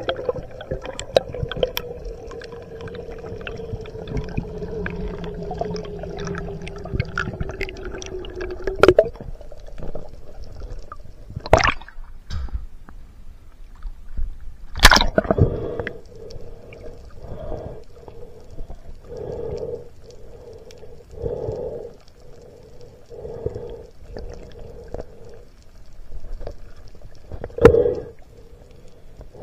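Sea water heard through a spearfisher's action camera going between underwater and the surface: a steady hum, with a few sharp splashes. In the second half there is a rhythmic wash about every two seconds.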